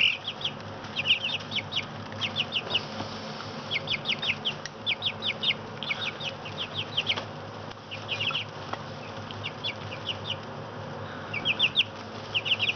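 A brood of four-week-old chicks peeping, with short high peeps coming in quick clusters of several at a time. A steady low hum runs underneath.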